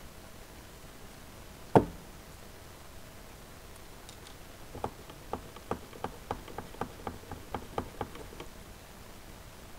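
A homemade Lego snuff machine put down on the table with one loud sharp knock, then worked by hand: a quick run of about fifteen plastic clicks, a little over four a second.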